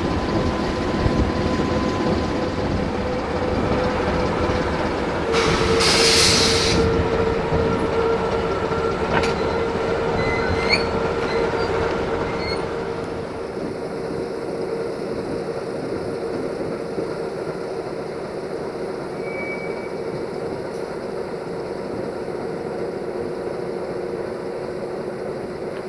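Freight train of hopper wagons rolling through the station, its wheels squealing in thin steady tones. A short loud hiss comes about six seconds in, and the rolling sound eases off after about thirteen seconds.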